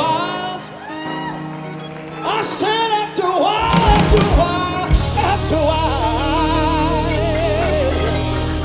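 Live gospel band with singing: sustained chords under vocal runs, a few drum hits about halfway through, then the full band comes in with heavy bass under a long vibrato vocal line.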